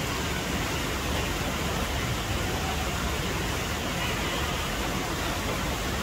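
Stream water rushing steadily over rocks and small rapids.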